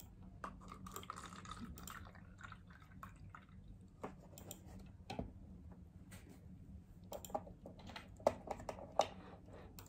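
Cranberry juice poured from a carton, a soft splashing trickle in the first few seconds, followed by scattered knocks and taps as cartons are handled and set down, the two loudest near the end.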